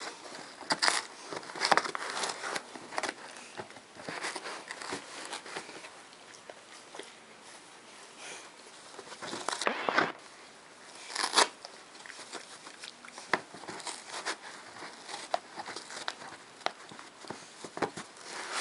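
Newfoundland dog chewing and tearing a cardboard box: irregular crunching, crackling and ripping of the cardboard, with louder bursts of tearing about a second or two in and again around ten and eleven seconds in.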